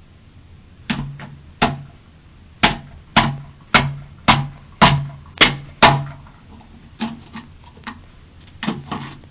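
Hammer blows hitting a front door, heard through a doorbell camera's microphone: a series of sharp, heavy bangs about two a second, each with a dull boom from the door. After about six seconds the blows turn lighter and less regular.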